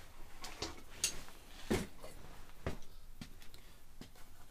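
Footsteps on a garage floor, a handful of light, irregular thuds and taps, the clearest about one and nearly two seconds in.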